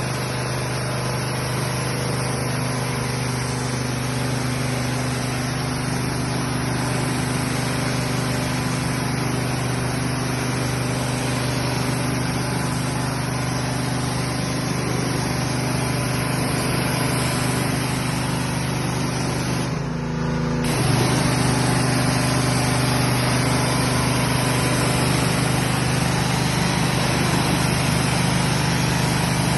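High-pressure washer running steadily with a constant motor hum and spray noise. About two-thirds through the sound briefly drops away for under a second, then carries on a little louder.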